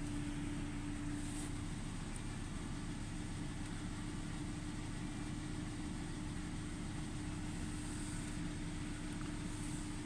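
2005 Volvo S40 engine running at idle with a steady whine over the engine's rumble, the sound the owner puts down to a failing alternator.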